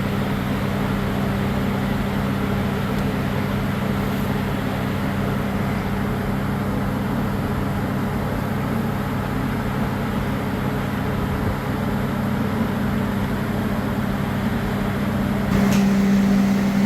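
Steady hum of factory machinery running, with a click near the end as the hum steps up louder.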